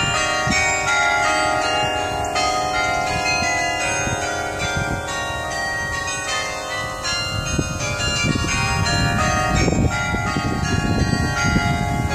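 A carillon of 67 bronze bells at the Thomas Rees Memorial Carillon playing music: many bell notes struck in quick succession and ringing on over one another. A low rumble joins in during the second half.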